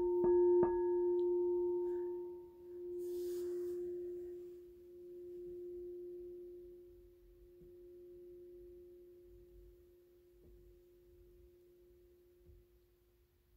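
Singing bowl struck twice in quick succession, then ringing on one steady tone that swells and fades in slow waves as it dies away.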